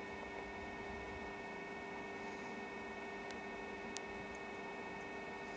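Faint steady hum with a few steady tones, likely room or equipment hum, with two faint ticks about three and four seconds in.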